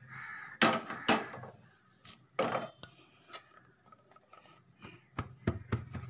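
Square metal baking tray knocked several times against the work surface to settle freshly poured Mysore pak mixture: two sharp knocks about a second in, another a second or so later, then three quick knocks near the end.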